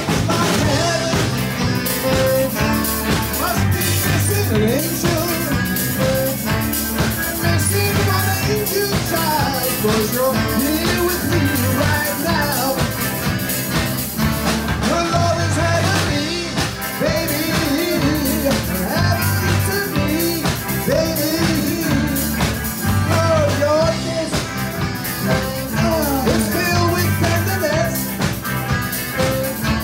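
Live rock and roll band playing with drum kit, electric guitars and saxophones over a steady beat, with a man singing into a microphone.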